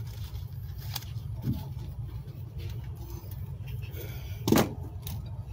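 Low steady rumble with a few faint clicks and a louder bump about four and a half seconds in: handling noise from a phone being carried while it records.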